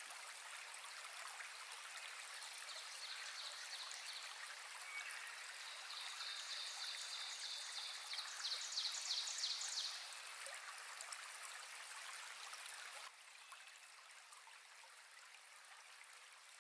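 Faint steady hiss, like running water, with a faint high chirping trill in the middle; the hiss drops lower about two thirds of the way through.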